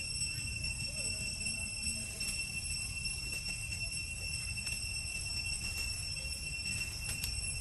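A steady high-pitched ringing tone with evenly spaced overtones runs unbroken over a low background rumble, with a few faint short chirps about a second and two seconds in.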